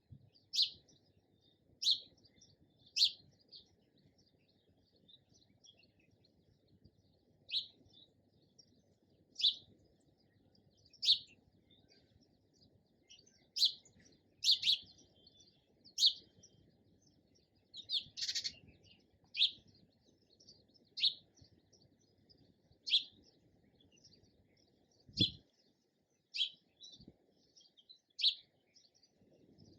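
Sparrow chirping: single short, sharp chirps every one to two seconds, with a longer, buzzier chirp about eighteen seconds in.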